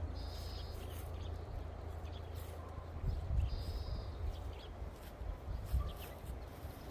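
Wind rumbling on the microphone, with a bird giving two short high trills, one at the start and another about three seconds later, and a few faint chirps between.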